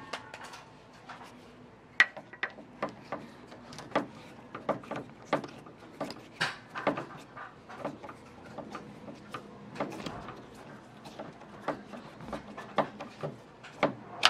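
Screwdriver knocking and clicking against the sheet-steel inner frame of a car door: irregular sharp metal clicks, a few a second, the loudest about two seconds in.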